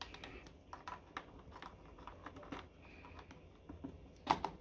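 Small plastic clicks and taps as wiring connectors are handled and pushed onto a washing machine's control board. The loudest click comes about four seconds in.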